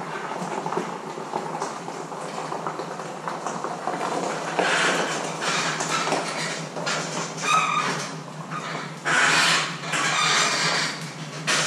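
A vehicle backing a boat on its trailer into a metal-walled building, getting louder as it comes in, with several louder bursts in the last few seconds.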